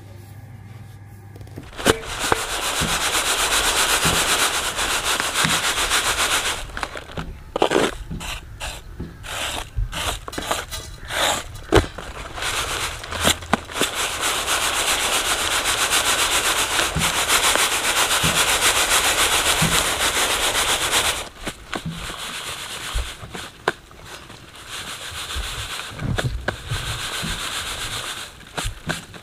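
Coarsely ground wheat being shaken and tossed in a reed winnowing tray (chhaj): a dense rustling hiss of grain sliding across the reed, steady in some stretches and broken into quick rhythmic shakes in others. This is the winnowing that sorts husks and the coarsest bits from the cracked wheat.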